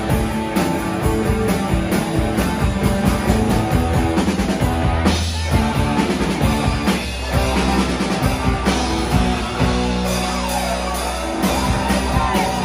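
Live rock band playing an instrumental passage: electric guitars, bass guitar and drum kit, loud and steady.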